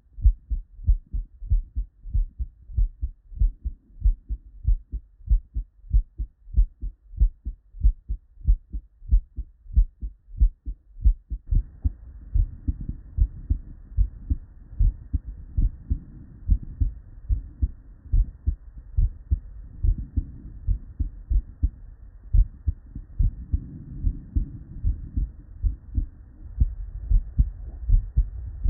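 Normal human heart sounds heard through a stethoscope: a steady lub-dub of S1 and S2 beats. About eleven seconds in, the recording changes and a faint steady hiss sits behind the beats.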